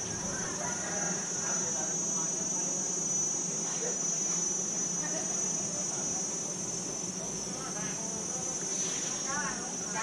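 A steady, high-pitched chorus of insects, unbroken and even, with a lower steady hum beneath it.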